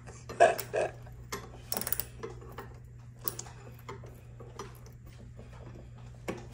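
Small ratchet driver clicking in short, irregular runs as it loosens the screws of a metal curtain-rod bracket.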